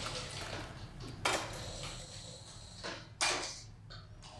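Heavy-duty leather sewing machine stitching through thick leather: its running trails off within the first second. A few sharp clacks follow, the loudest about three seconds in.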